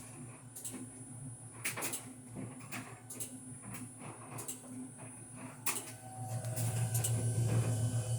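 Fisher & Paykel DEIX2 SmartLoad top-loading clothes dryer running with a steady hum and an annoying clicking noise: sharp clicks at uneven intervals, roughly one a second. The hum grows louder about six seconds in.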